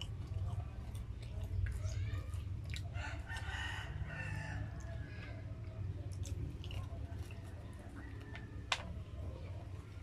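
Close-miked eating: chewing and lip smacks while eating french fries, with a sharp click near the end. A drawn-out bird call sounds in the background from a couple of seconds in, over a steady low hum.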